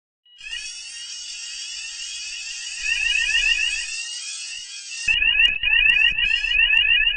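Roshni fire alarm sounders going off with a high, rapidly repeating upward-sweeping tone. It starts about a third of a second in and gets louder about five seconds in, with low knocks and rumble under it.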